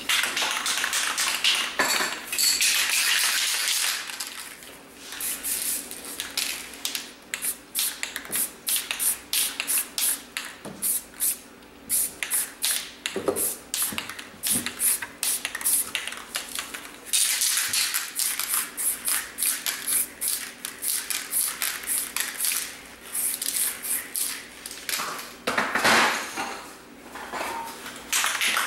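Aerosol spray paint can hissing as red paint is sprayed onto poster board, mostly in quick short bursts, with a few longer sprays near the start, in the middle and near the end.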